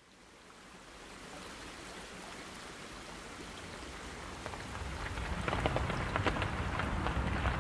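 Water pattering like rain, a steady hiss fading in and building. From about five seconds in it turns into dense pattering drops over a low rumble.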